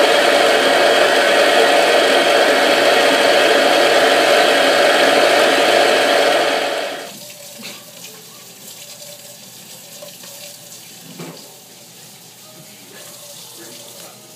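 Electric mixer motor running steadily with a whine, cutting off abruptly about seven seconds in. After that, the quiet scraping and a couple of soft knocks of a spoon against the bowl and a metal cake pan as thick batter is spooned out.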